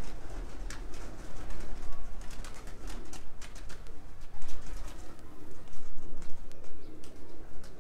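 Domestic pigeons cooing continually, with scattered sharp clicks and scuffs.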